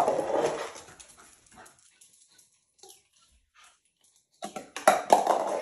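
A small dog vocalizing while begging for food: a louder sound right at the start, then a few short pitched calls near the end.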